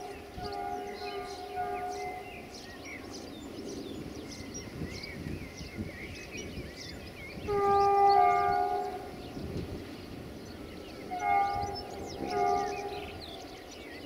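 Multi-tone air horn of a GM diesel locomotive sounding from an approaching train that is still out of sight: a quick run of short blasts, one long loud blast about eight seconds in, then two short blasts near the end. Birds chirp throughout.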